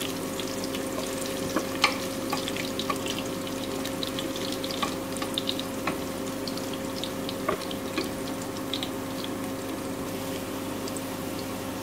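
Whole spices and lightly fried sliced onion sizzling in hot oil in an aluminium pressure cooker, crackling with many small sharp pops, stirred now and then with a wooden spatula. A steady low hum runs underneath.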